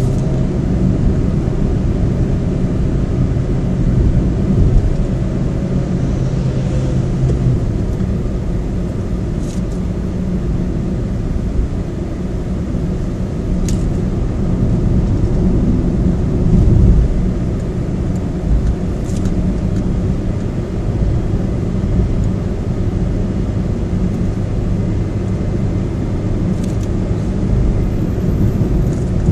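Car engine and road noise heard from inside the car while driving: a steady low rumble, with the engine note changing about seven or eight seconds in and a low thump somewhat past halfway.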